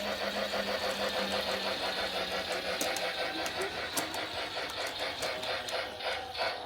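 Lionel G-gauge Polar Express battery-powered toy train running on its track: the motor runs steadily, with a fast, even clicking from the wheels and gears.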